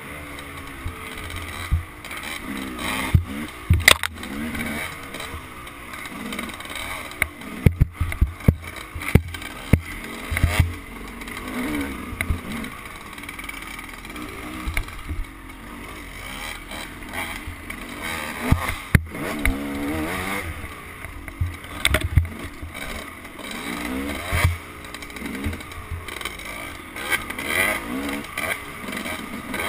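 Dirt bike engine revving up and down as it is ridden along a rough trail, with frequent sharp knocks and rattles from the bike bouncing over the ground.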